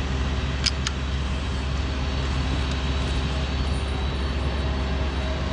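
Steady low engine hum with two short sharp clicks under a second in.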